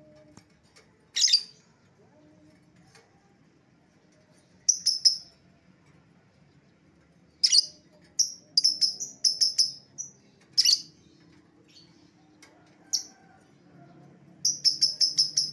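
Lovebird calling in short, shrill, high chirps: a few single sharp calls spaced a few seconds apart, and quick runs of chattering notes, the last run about seven notes in rapid succession near the end.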